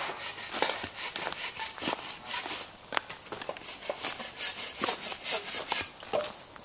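Footsteps crunching through dry leaf litter and undergrowth on a woodland floor, a run of short scratchy steps.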